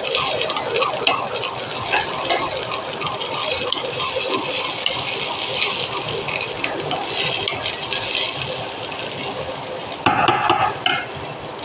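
Spatula stirring and scraping vegetables in a non-stick frying pan: a steady run of small clicks and scrapes, with a louder burst about ten seconds in.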